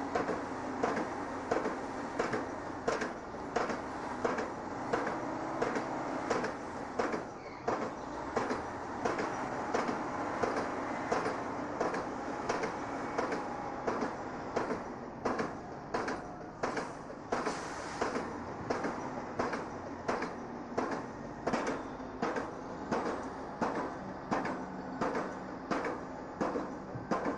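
Steady, even knocking, about four strikes every three seconds, over a continuous mechanical din.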